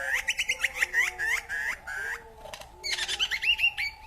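A bird singing a quick run of about eight repeated sweeping whistled notes, a short pause, then another run of similar notes.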